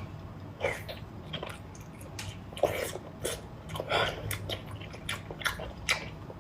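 Close-up sounds of a person biting and chewing large garlic-sauce abalone: irregular wet bites and chews, a few every second.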